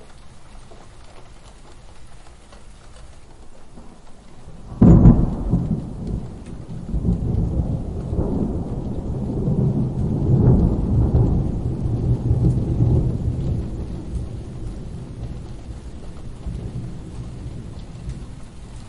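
Thunderstorm sound effect: steady rain, then about five seconds in a sudden thunderclap that rolls into a long low rumble, swelling again and slowly dying away.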